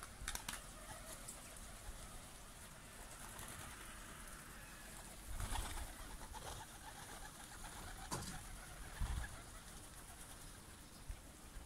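Pigeons cooing faintly, with a few brief noisy bursts about five and a half and eight seconds in and a low thump about nine seconds in.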